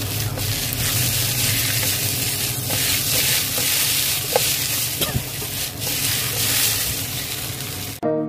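Thin potato slices with cumin seeds and dried red chillies sizzling in hot oil in a non-stick kadai, stirred with a few sharp clicks and scrapes against the pan. The sizzle cuts off abruptly near the end and soft music begins.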